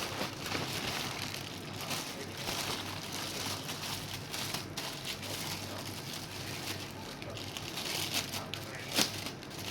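Packaging crinkling and rustling as a parcel is handled and unwrapped, with a sharp click about nine seconds in.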